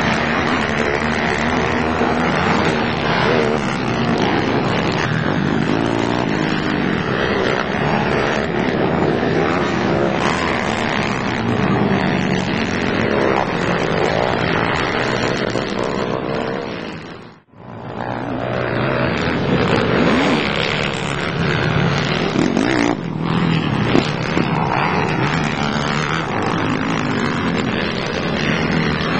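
Racing ATV (quad) engines revving hard, their pitch rising and falling continuously as the throttle opens and closes. The sound drops out briefly about two-thirds of the way through.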